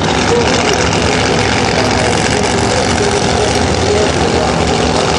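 Pro Mod drag-racing engines, a Pro Mod Dodge Viper's among them, idling loudly and steadily at the starting line.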